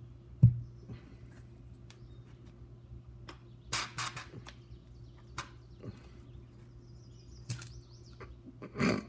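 Handling sounds from working a plastic syringe into a basketball's inflation valve: a sharp knock about half a second in, then scattered clicks and a few short rasping noises, over a steady low hum.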